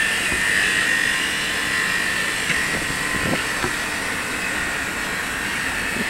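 Steady outdoor background noise: a continuous drone with a high, steady whine, and a few faint knocks a little after halfway through.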